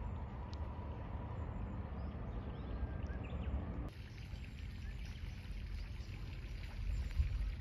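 Outdoor garden ambience: a low, uneven rumble with a few faint chirps in the first half. The background changes abruptly about four seconds in.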